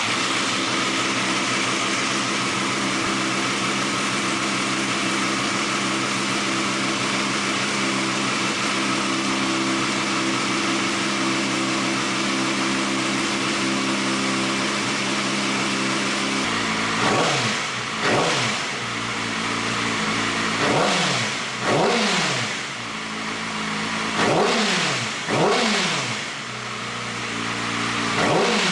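Yamaha R6's inline-four engine idling steadily through a LeoVince LV-10 slip-on exhaust. Over the last dozen seconds the throttle is blipped about seven times, each rev rising sharply and dropping back to idle.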